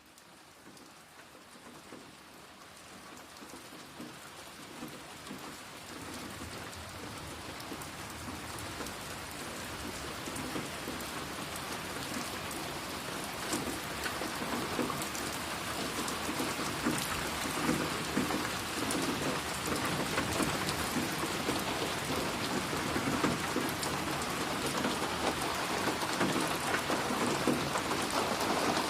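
Steady rain falling and splashing on a surface, a dense patter of drops that fades in gradually from faint to full loudness.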